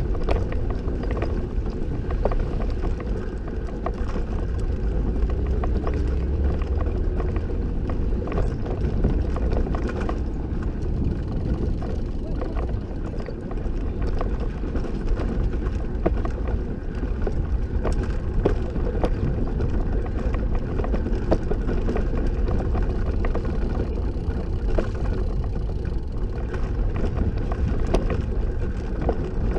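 Recumbent trike's tyres rolling over a wooden plank deck: a steady low rumble with many irregular clicks as the wheels cross the board joints.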